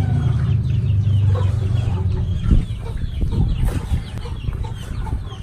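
Chickens clucking, with a steady low rumble under them that fades about halfway through and a few knocks in the middle.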